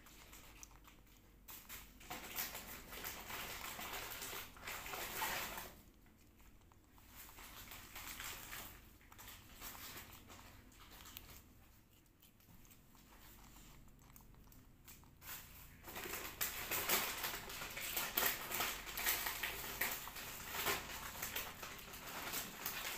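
A baby monkey biting and chewing a plum close to the microphone: quick wet clicks and smacks in stretches, busiest in the last third.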